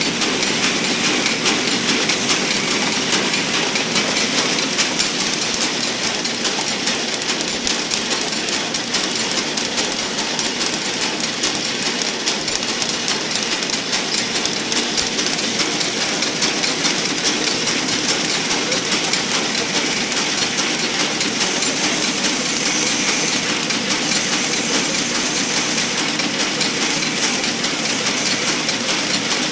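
Automatic cup counting and flow-wrap packing machine running: a steady, dense mechanical clatter with a fast, even rattle.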